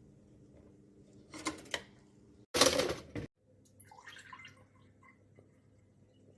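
Liquid splashing in two short bursts, the second louder and cut off abruptly, followed by a few faint small clinks.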